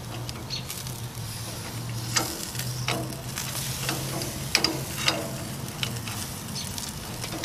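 Steak and vegetable kebabs sizzling on a hot gas grill, with several sharp metallic clinks as the flat stainless steel skewers are turned in a steel kebab rack.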